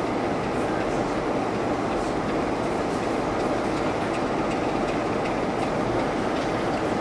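Steady rumble of a heritage diesel-hauled passenger train, heard from an open carriage window, with faint clicks of wheels over the rail.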